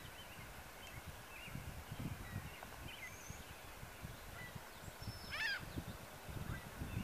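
Wild turkey gobbler gobbling once about five seconds in, a short rattling call. Faint scattered songbird chirps and a low rumble on the microphone lie beneath it.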